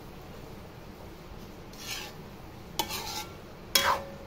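Metal spatula scraping and clanking against a wok while tossing rice noodles and vegetables. A few separate strokes come in the second half; the loudest, near the end, has a brief metallic ring.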